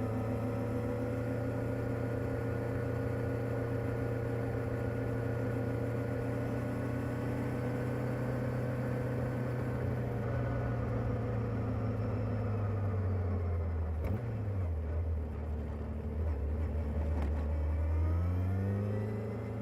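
Kawasaki ZR-7S motorcycle's air-cooled inline-four with its stock exhaust, running at a steady note for most of the time. About two-thirds of the way in the pitch drops, and it climbs again near the end.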